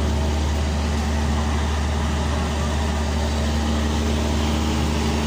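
Busy street traffic: a steady low engine hum under a general wash of road noise from cars, motorbikes and auto-rickshaws.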